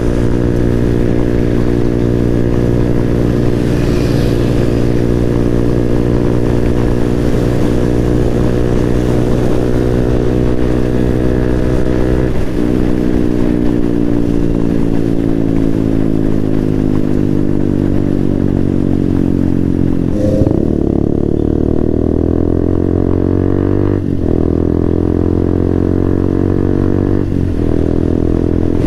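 Motorcycle engine running steadily under way, its note shifting slowly in pitch, with a few brief breaks in the note that sound like gear changes.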